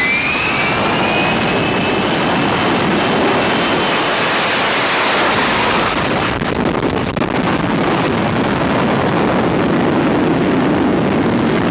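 F-35B's F135 jet engine at high power for a short takeoff, a loud steady jet roar with a high whine that slides slightly down over the first few seconds. About six seconds in the highest part of the sound falls away as the jet moves off down the deck and lifts off.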